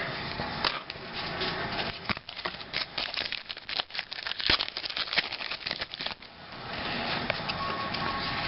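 Football trading cards being handled and shuffled through by hand: a busy run of small crinkling and clicking sounds.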